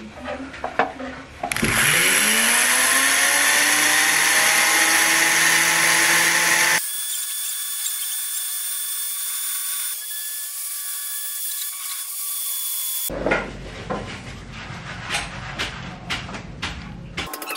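A small handheld rotary engraving tool spins up with a rising whine about a second and a half in and runs steadily as its fine bit grinds along the drawn lines of a carved badik handle; about five seconds later the sound switches abruptly to a thinner, high-pitched whine. Toward the end the motor gives way to quick ticks and scrapes of a hand chisel cutting into the handle.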